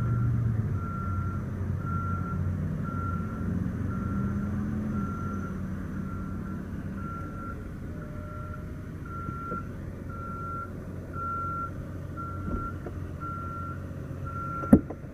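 Power soft top of a 2014 Mercedes E350 Cabriolet closing: a low motor hum as the roof moves, ending in a sharp click as it latches near the end. Over it, a steady electronic beep repeats about twice a second at one pitch.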